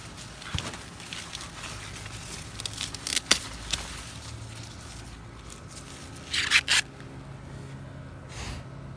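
Corn plant leaves and husks rustling and crackling as an ear of sweet corn is pulled from the stalk, with sharp snaps and a louder tearing rustle about two-thirds of the way through.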